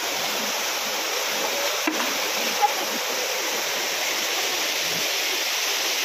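Waterfall: water pouring down over rocks in a steady, even rush.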